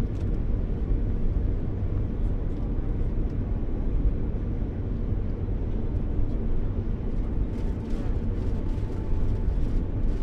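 New York City subway Q train heard from inside the car as it runs: a steady low rumble with faint clicks and rattles over it.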